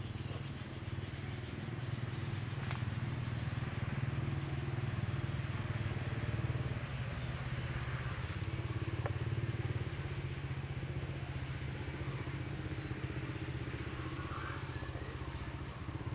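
Steady low hum of an idling engine, unchanging throughout.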